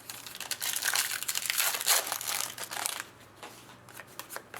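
Plastic foil trading-card pack wrapper crinkling as it is handled and opened, for about three seconds, followed by a few faint clicks of cards being handled.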